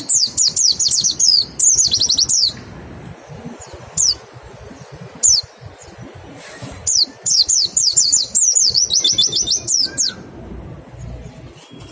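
White-eye (pleci) giving fast runs of high, down-slurred 'wit wit' notes, the 'nembak' call: one long burst at the start, a couple of single notes, then another long burst from about seven seconds in.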